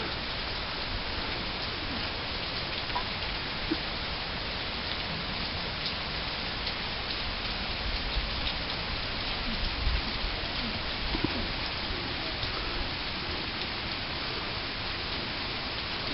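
Steady rain falling, an even hiss with scattered louder drops.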